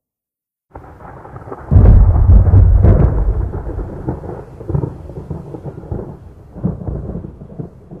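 Lightning strike and thunder: after a moment of silence a low rumble begins just under a second in, then a sharp, loud crackling crash hits at about two seconds. It gives way to a long rolling rumble that fades with several renewed swells.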